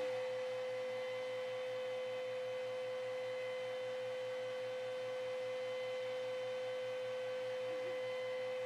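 Steady electrical hum: one strong held tone with fainter overtones above it and a faint, rapidly pulsing lower hum, unchanging. It comes from household appliances running on an overloaded circuit shortly before the breaker trips.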